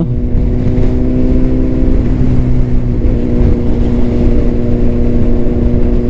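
Honda CBR600RR inline-four engine through a Leo Vince exhaust, running at a steady cruising speed with an even engine note over a low rumble. The note shifts slightly about two seconds in.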